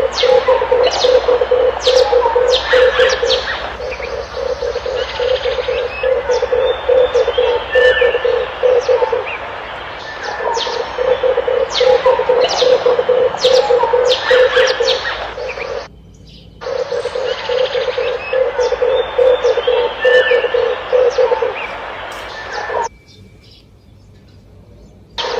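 Red turtle doves cooing: a low, rapid rolling coo repeated in runs of several seconds, with many short sharp chirps of small birds over it. The recording breaks off briefly about two-thirds of the way in and cuts off suddenly near the end.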